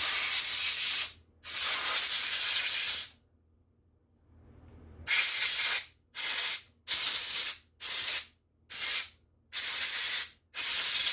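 Compressed-air blowgun blowing down cleaned carburetor parts, hissing in two longer blasts, then after a pause in a run of short bursts, about one a second.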